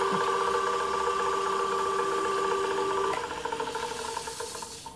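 Electric motor of a woodturning lathe running with a steady hum. About three seconds in the hum changes and then fades as the lathe is switched off and the spinning wooden workpiece runs down to a stop.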